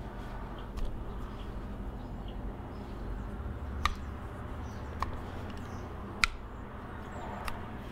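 Several sharp metallic clicks and taps as a small engine carburetor is handled and worked with a screwdriver, the loudest about four seconds and about six seconds in, over a steady low hum.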